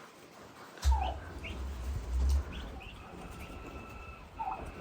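Baby turkeys (poults) peeping, with short falling chirps and a few longer held peeps. A sharp knock comes about a second in, followed by a low rumble lasting a second or so.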